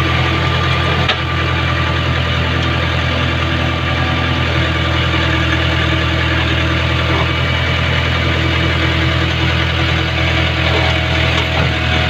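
JCB backhoe loader's diesel engine running steadily, heard close up from the operator's seat while the backhoe arm digs sand from the stream, with a brief knock about a second in.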